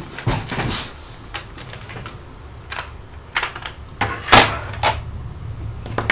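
Small hand tools clicking and clattering as they are picked through and put down, in a string of irregular sharp knocks with the loudest clatter about four seconds in.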